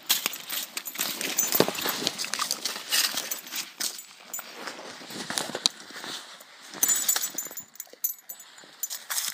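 Irregular crunching, scraping and crackling of snow and slush around an ice-fishing hole, with handling noise, as a fish is hand-lined up and laid on the snow.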